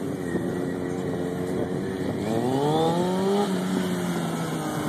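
Sport motorcycle engine running under throttle: a steady note, then revving up from about two seconds in and easing back off over the last second or so.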